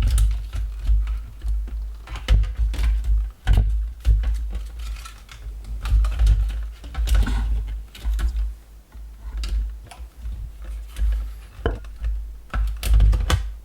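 Irregular clicks and knocks of hard plastic parts being handled and fitted, over dull low thumps. These are the Dyson fan's spring-mounted motor assembly being tried into different positions in its housing.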